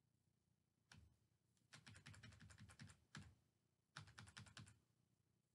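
Faint typing on a computer keyboard: a single keystroke about a second in, then two short runs of quick keystrokes.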